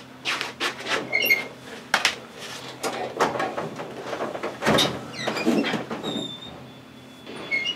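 Steel locker rattling and knocking as a person squeezes inside and pulls its metal door shut, with a string of bumps against the sheet-metal walls, clothes rustling and a few short squeaks.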